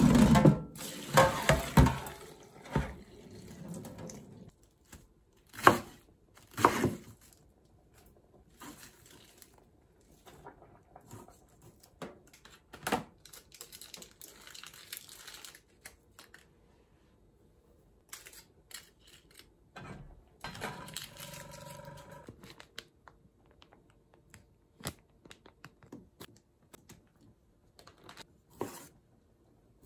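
Boiled spaghetti being drained: hot cooking water pours from the pot into a stainless-steel sink for the first few seconds. Scattered knocks and clatters of pots and utensils follow.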